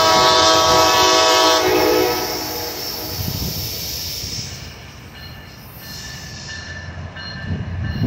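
Air horn of an Amtrak SC-44 Charger diesel-electric locomotive sounding a long chord blast that cuts off about a second and a half in. Then comes the approaching train's running noise, which grows louder near the end.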